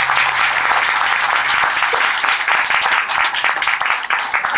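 Audience applauding, a dense patter of many hands clapping. A low held note fades out under it about a second and a half in.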